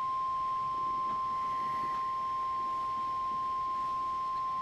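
NOAA Weather Radio warning alarm tone: a single steady, unbroken 1050 Hz tone, the alert signal sounded ahead of a tornado warning broadcast.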